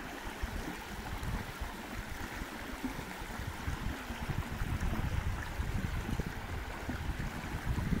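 Steady rush of flowing stream water, with low rumbling buffets of wind on the microphone.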